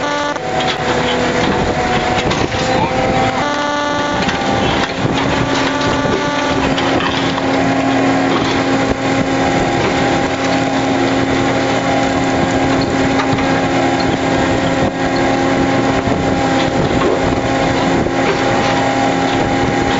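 Fishing boat's engine and deck machinery running with a steady droning hum, under a noisy wash of working sounds and irregular knocks as the net is hauled aboard.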